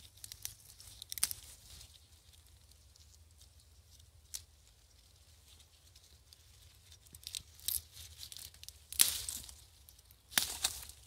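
Roselle calyces being snapped off their stems by hand among rustling leaves: a few short, crisp tearing and rustling bursts, the two loudest near the end, over a faint low hum.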